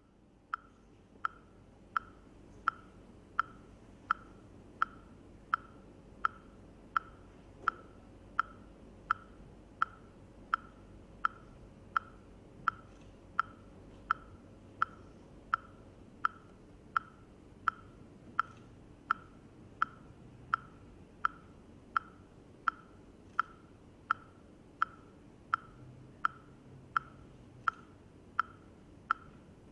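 Metronome ticking steadily, about three ticks every two seconds, each a short sharp click with a brief pitched ring.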